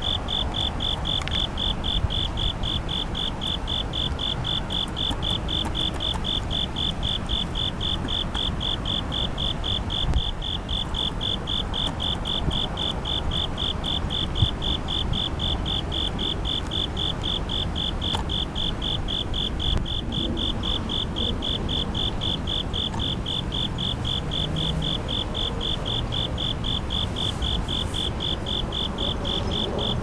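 Bell crickets (suzumushi) singing, a steady high trill of evenly repeated pulses, over a low rumble of distant city traffic.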